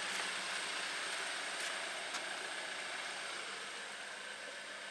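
Steady rush of air from a BMW's climate-control blower with the engine idling; the newly fitted A/C compressor is running and the system is blowing cold.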